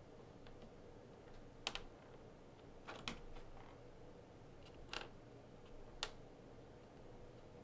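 Faint, scattered clicks of small hard kit parts and screws being handled and set in place during assembly. There are about six sharp clicks in all, some in quick pairs, spread a second or two apart.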